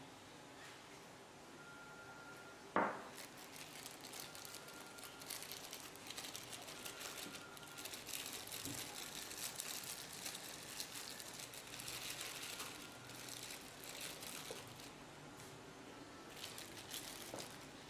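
Small plastic bag crinkling as hands work it open and squeeze thawed curry paste out into a small bowl, with one sharp knock about three seconds in.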